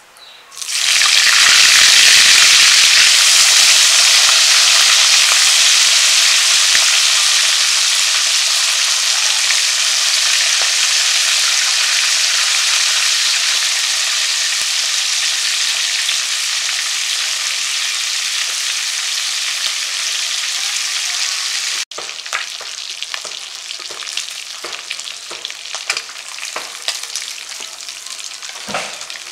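Pieces of hilsa fish hitting hot oil in an iron karahi, setting off a sudden, loud, steady sizzle about a second in. After a cut about two-thirds of the way through, the sizzle is quieter and broken by short clicks of a metal spatula against the pan.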